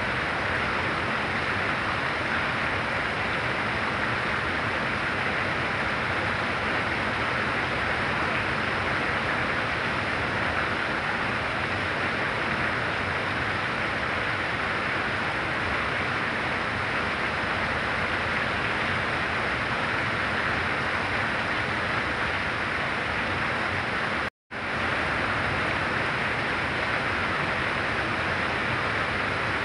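Heavy rain falling steadily, a dense even hiss. It cuts out completely for a split second about 24 seconds in, then resumes.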